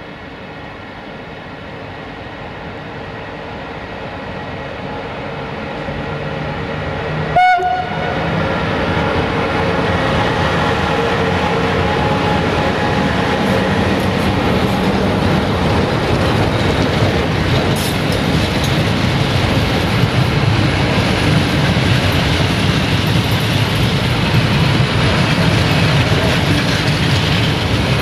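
Train approaching and running through the station, growing louder over the first ten seconds and then rumbling steadily close by, with rail clatter. A short horn blast sounds about seven seconds in.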